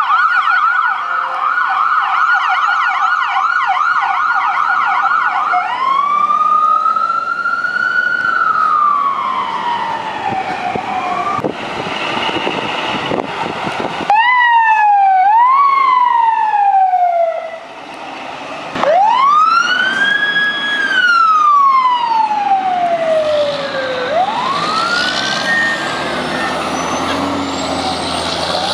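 Emergency vehicle sirens: a fast yelp for the first six seconds, then slow wails that rise and fall over several seconds each, with a short run of quick rising sweeps near the middle. A large engine runs underneath near the end.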